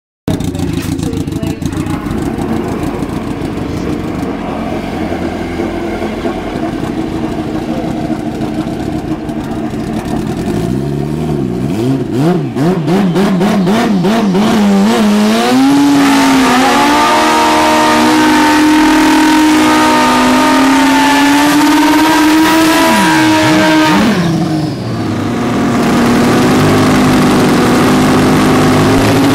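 Turbocharged Suzuki Hayabusa drag bike's inline-four engine running, then revved in uneven blips. About halfway through it is held at high revs for roughly eight seconds, drops off briefly, and then settles to a steady, lower note.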